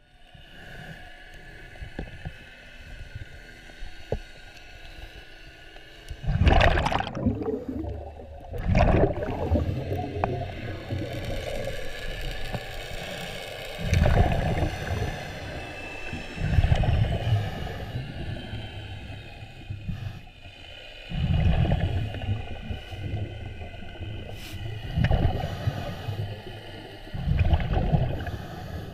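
Underwater camera audio: gurgling, rushing water noise in bursts every few seconds as the diver moves about and handles a speared fish, over a faint steady high whine.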